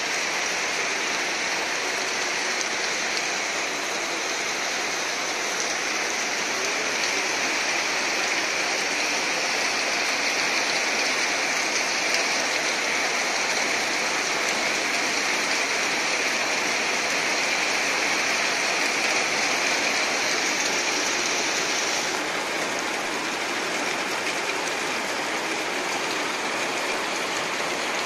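Heavy rain falling steadily, a dense even hiss of drops. About 22 seconds in the hiss turns a little less bright.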